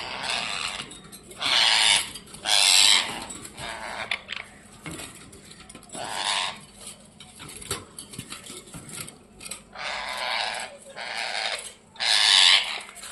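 Pet ringneck parrot giving a series of harsh, rasping squawks, about six of them spread a second or more apart. The calls are typical of an agitated, aggressive bird.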